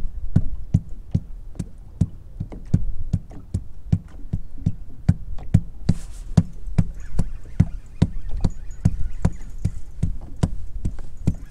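A foot patting on the boat's floor in a steady rhythm, about three knocks a second: the old trick of making noise to keep schooling white bass (sand bass) under the boat.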